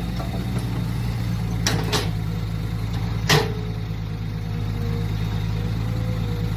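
Mini excavator engine running steadily, with two sharp knocks about two seconds in and a louder single knock a little after three seconds.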